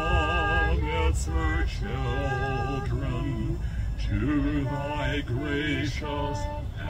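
A man and a woman singing a slow song together at a microphone, held notes with vibrato between short breaths, over a steady low rumble.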